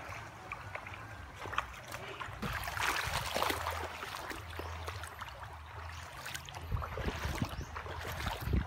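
Shallow, rocky stream water sloshing and splashing around someone wading through it, swelling louder now and then over the stream's steady flow.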